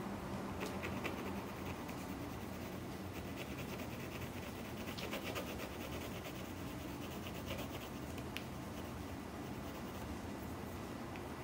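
Pencil lead scratching on paper in quick back-and-forth shading strokes, in runs that come and go, densest in the middle. Under it is a steady low hum.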